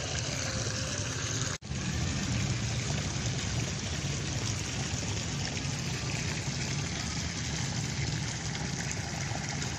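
Steady outdoor background noise, even and hiss-like, broken by a brief dropout about one and a half seconds in.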